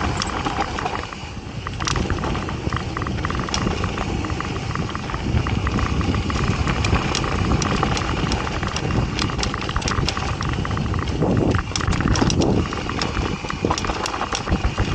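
Mountain bike riding fast down a dry dirt trail: a steady rush of tyre and riding noise with many sharp rattles and clatters as the bike runs over bumps.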